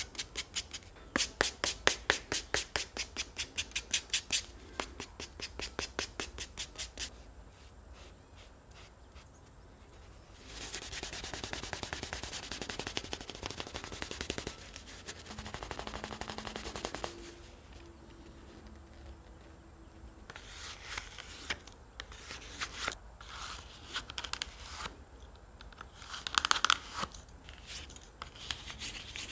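Hand-finishing of a leather card wallet. First comes a fast run of brisk rubbing strokes, about six a second, that slows and fades by about seven seconds in. From about ten seconds a steadier rubbing follows as a cloth buffs the leather, and near the end come scattered light scrapes and taps as a wooden tool is worked into a card slot.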